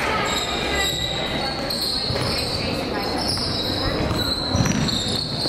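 Sounds of a basketball game in play: a basketball bouncing on the court over the chatter of spectators and players.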